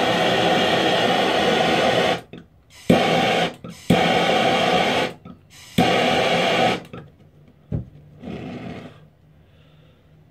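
Handheld propane torch on a small green cylinder, its flame hissing in four long bursts, each starting with a click and cutting off abruptly, then a shorter, fainter burst about eight seconds in. It is heating a tin of candle wax until the wax smokes.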